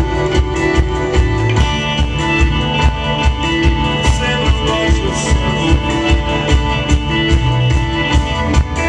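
A live band playing: electric guitars, keyboard and drums with a steady beat.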